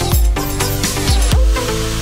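Electronic dance music with deep kick drums. The beat drops out about one and a half seconds in, and a smoother section carries on.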